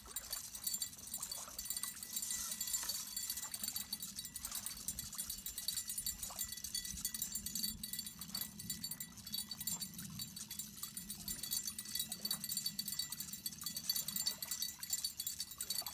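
Fishing reel's drag paying out line as a hooked striped bass pulls against it, with a small bell jingling along with it.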